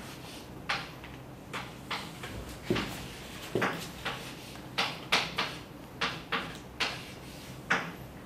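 Chalk tapping and scraping against a blackboard as an equation is written: about a dozen short, sharp strokes in an uneven rhythm.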